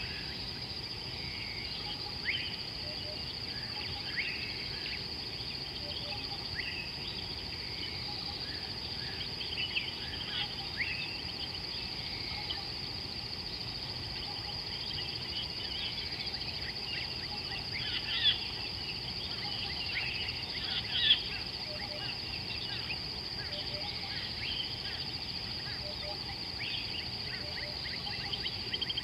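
Wild birds calling, many short chirps and whistles from several birds over a steady high insect drone. Two louder calls stand out about two-thirds of the way through.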